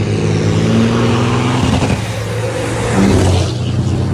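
Two semi-truck diesel engines under hard acceleration side by side, drawing near and passing close by. The engine note changes pitch about two seconds in and again about three seconds in.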